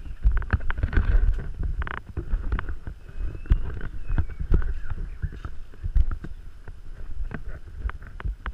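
Footsteps on a dirt trail strewn with dry leaves and twigs, with brush rustling and snapping against the person carrying the camera. It is an uneven run of thumps and sharp clicks, with no engine running.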